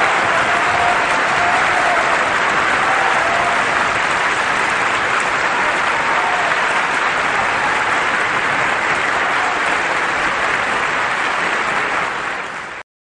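Audience applauding steadily, fading quickly and cutting off just before the end.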